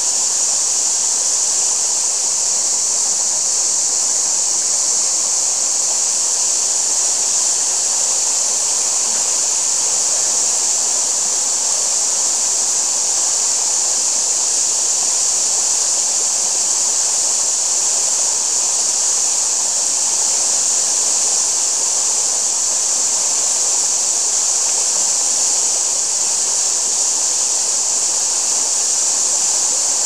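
Steady rushing of a shallow woodland stream over stones, an even high hiss.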